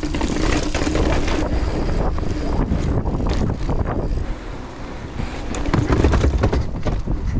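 Wind buffeting the microphone over a steady low rumble of wheels rolling, with scattered clicks and rattles.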